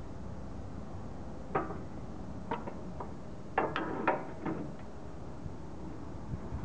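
Steel mounting pin sliding through the steel hinge tubes of a snow-plough mounting bracket, clicking and clanking against the metal several times, in a cluster from about one and a half seconds in.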